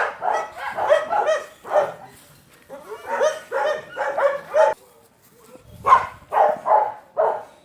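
Dog barking repeatedly, in three quick runs of barks separated by short pauses.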